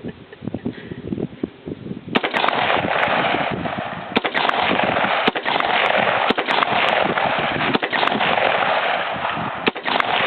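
Rock River AR-15 semi-automatic rifle fired in a quick string of about a dozen shots at uneven spacing, starting about two seconds in, over a steady rushing noise.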